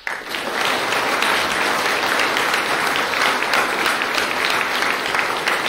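Audience applauding steadily after a talk ends, a dense patter of many hands clapping that starts all at once.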